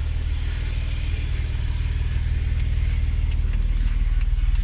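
Jeep Wrangler JK's V6 engine idling with a steady low rumble.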